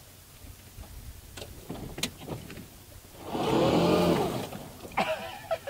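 Rear-wheel-drive electric golf cart's motor whining up and back down for over a second, about three seconds in, as its rear wheels spin in loose sand and pine needles and throw them up. A few sharp clicks come before it.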